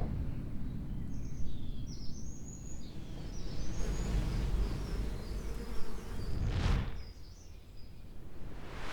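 Wind rumbling on the microphone while small birds chirp through the first six seconds or so, followed by two brief whooshes, one near the end and one at the very end.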